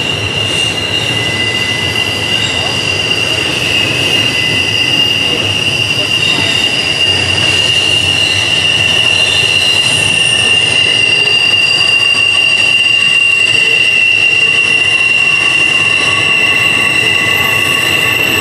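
Wheels of a passing double-stack intermodal freight train squealing steadily on a sharp curve: flange squeal, several high ringing tones over the continuous rumble of the wheels on the rails.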